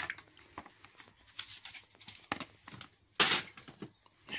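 Scattered clicks and knocks from a small home-built combat robot being handled on a concrete floor, with one louder, short scraping rush a little after three seconds in.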